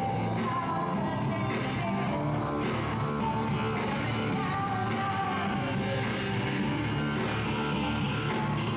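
Live band music: a woman singing into a microphone over electric guitar, bass guitar and keyboard.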